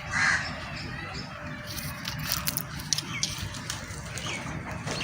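A crow caws once at the very start, then scattered light clicks and crackles follow.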